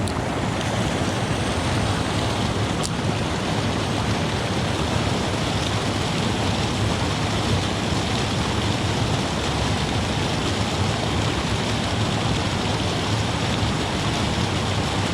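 Creek water pouring over a small dam waterfall: a steady, even rush of falling water.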